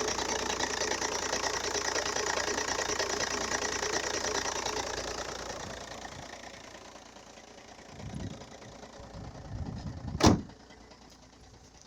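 2.0 TDI diesel engine running with a rattling knock, which the owner puts down to a worn dual-mass flywheel; the sound fades away after about five seconds. Two low rumbles follow, then a single sharp thump near the end.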